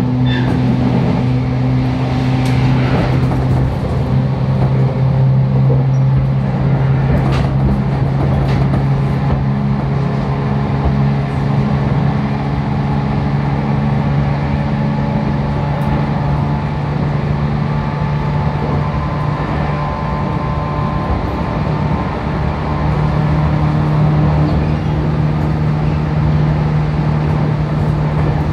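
JR Kyushu 811 series electric train's motor car running at speed, heard from inside the car: a steady electric motor and gear hum over wheel-on-rail rumble. There are a few sharp clicks about a quarter of the way in, and the hum rises slightly in pitch past two-thirds of the way.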